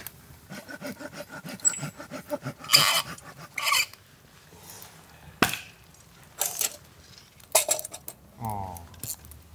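Firewood being handled and put onto a campfire: scattered knocks, scrapes and clinks, the loudest about three seconds in, with a sharp knock about halfway through.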